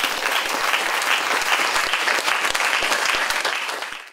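Audience applauding: many hands clapping steadily, fading out just before the end and cutting off abruptly.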